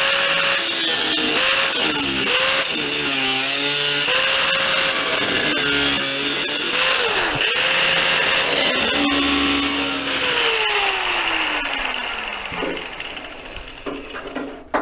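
Angle grinder with a thin cut-off disc cutting through the steel sheet of an MGB front wing, its motor pitch dipping and recovering as the disc bites into the metal. About ten seconds in it is switched off and winds down with a falling whine.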